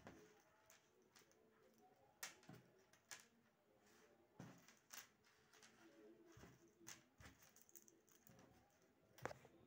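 Near silence: room tone with a few faint, sharp clicks scattered through it.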